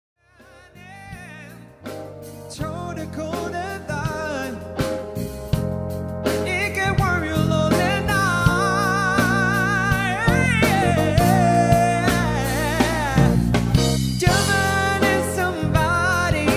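Background music with a singing voice, fading in from near silence. A steady bass line and beat come in after a couple of seconds, and the song gets fuller about six seconds in.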